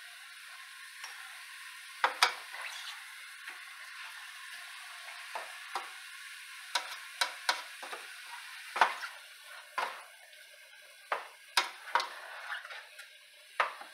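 Ground turkey sizzling as it browns in a stainless steel pot, with a spatula stirring and scraping through it and knocking against the pot in a string of sharp clicks, the loudest about two seconds in and again near nine and twelve seconds.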